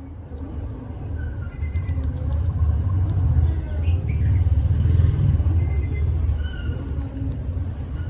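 Low rumble of a passing vehicle that swells over a few seconds and fades again, with a few short faint bird chirps over it.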